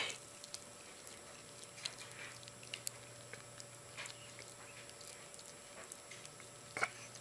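A small dog chewing and tugging at a taut string held through its teeth, making faint, scattered short noises, louder once near the start and again near the end.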